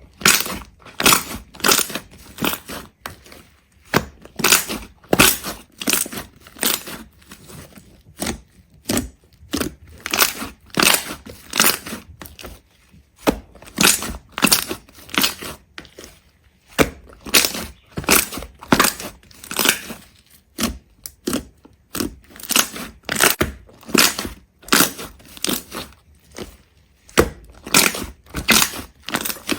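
A run of short, crisp crunches, about two a second with uneven spacing, as something brittle is crushed or cut piece by piece.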